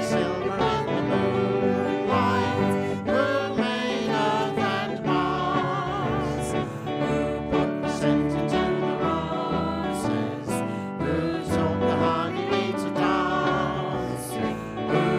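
Congregation singing a worship song, accompanied by a live band.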